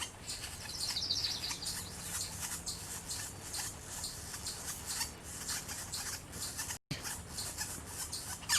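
Faint high bird calls: a quick run of repeated chirping notes about a second in, and short high calls scattered throughout.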